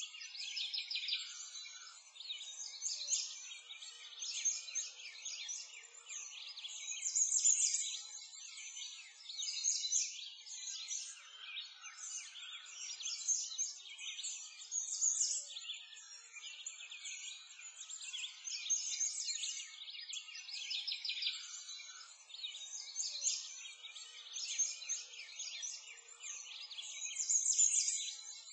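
Dense chorus of small songbirds chirping and twittering without a break, high-pitched and thin, with nothing deep underneath.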